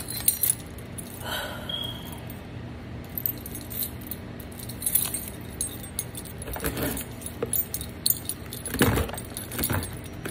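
A bunch of keys on a key ring jangling as one key is dragged through the packing tape on a cardboard box, with short scrapes and knocks against the box every few seconds.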